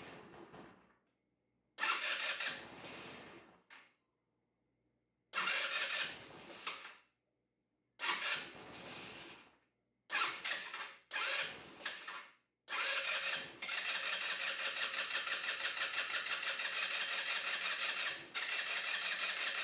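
Chinese GY6 150 cc single-cylinder four-stroke scooter engine being started over and over, each attempt bursting into life and fading out within a second or two; about two-thirds in it keeps going with a rapid, uneven pulse that falters briefly near the end. The hard starting and stalling are the sign of a fuel delivery fault in the carburetor, not the spark plug, which the owner finds.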